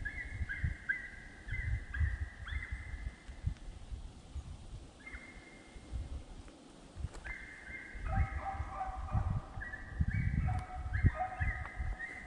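Deer-hunting dogs baying over and over as they run a deer's track, each bay starting sharply and sliding slightly down. A second dog's voice joins in about eight seconds in, the two overlapping, with low thuds and rumbles underneath.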